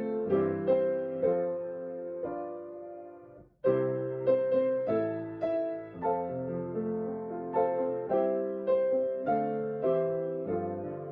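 Solo piano playing a slow, gentle piece, one note or chord at a time, each ringing and fading. The playing breaks off for a moment about three and a half seconds in, then goes on.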